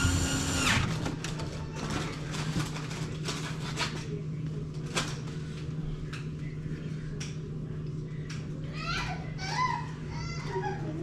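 A steady low machine hum with scattered clicks and knocks, as of tools and metal parts being handled, and a brief wavering squeal or distant voice about nine seconds in.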